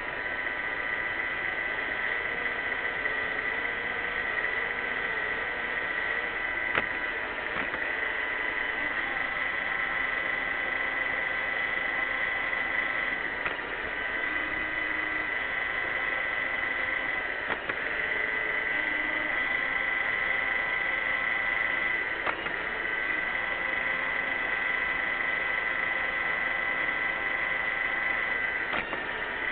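iRobot Roomba 600-series robot vacuum running: a steady high motor whine with a lower hum that wavers in pitch, and about six brief knocks spread through.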